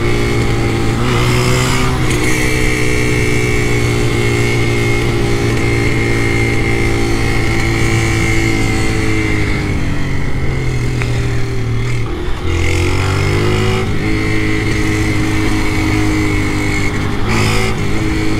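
Small motorcycle engine running at steady cruising revs. About twelve seconds in the revs drop briefly, then pick up again.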